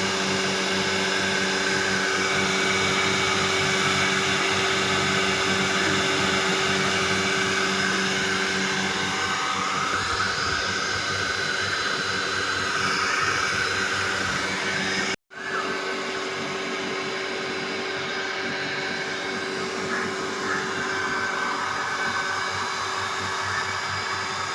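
Texmo 1.5 HP jet pump's electric motor running steadily under load, a constant hum over the rush of water being pumped, with the pressure set to about 1 kg/cm² after a pressure relief valve overhaul. The sound cuts out for a moment about fifteen seconds in, then carries on unchanged.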